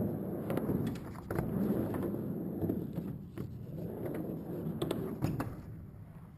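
Skateboard wheels rolling over the park's ramps and flat, a low rumble that swells and fades as the rider rides up and down the transitions, broken by several sharp clacks of wheels and trucks on joints and coping. Near the end the board is kicked up and the rumble stops.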